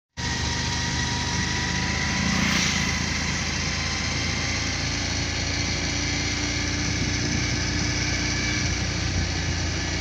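Motor scooter engine running steadily while riding along a road, with a constant hiss of wind and road noise.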